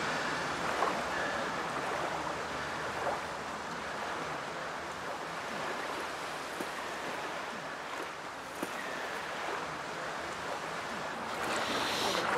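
Steady outdoor background rush with no speech, growing a little louder near the end.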